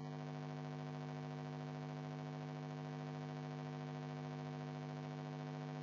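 Steady electrical hum with a faint hiss underneath: the recording's constant background noise, with nothing else happening.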